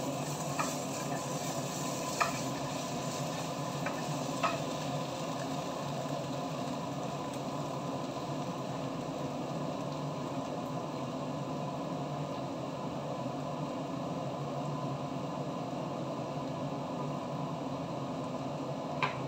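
Tomato paste and onions sizzling steadily in a frying pan while a wooden spatula stirs and scrapes them. A few sharp clicks in the first few seconds and one more near the end.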